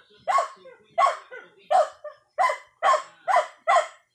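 A dog barking over and over in a steady run of short barks, about two a second.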